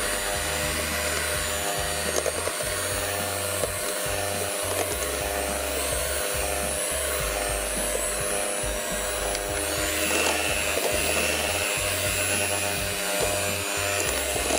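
Electric hand mixer running steadily, its beaters mixing flour into an egg, sugar and oil cake batter in a glass bowl. Its tone shifts about ten seconds in.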